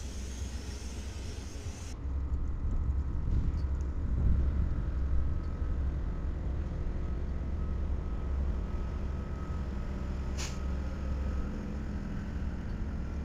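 Several diesel freight locomotives running past, a steady deep engine rumble, with a short hiss about ten seconds in.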